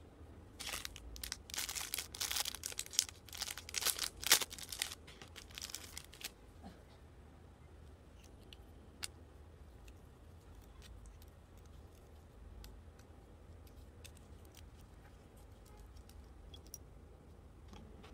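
A metal pen camera being twisted apart by hand: a run of scratchy, rasping handling strokes over the first six seconds, loudest about four seconds in. After that come only scattered small clicks and taps as the ink refill is handled.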